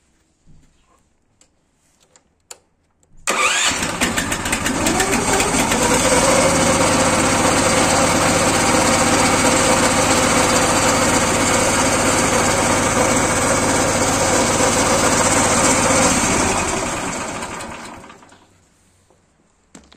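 Lifan single-cylinder petrol engine started with its electric starter, catching abruptly about three seconds in and speeding up over a couple of seconds. It runs steadily and loudly, then is switched off near the end and winds down over about two seconds.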